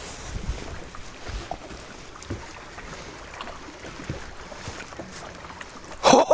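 Wind noise on the microphone and water moving around a bass boat, with faint scattered knocks from the boat. A sudden loud rush of noise near the end.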